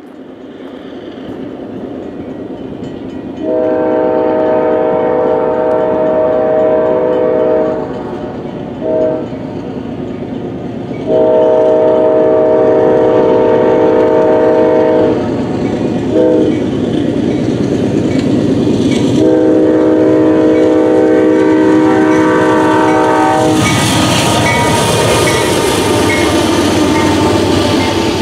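Freight locomotive air horn sounding for a grade crossing, several tones at once as a chord: three long blasts with a short toot between each, over the growing rumble of the approaching train. About three-quarters of the way through, the locomotive passes close by and the loud noise of its engine and wheels takes over as the freight cars follow.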